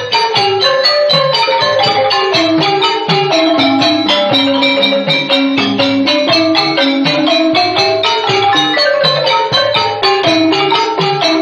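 Khmer pinpeat ensemble playing: a quick melody of mallet-struck xylophone and gong-circle notes over regular drum strokes.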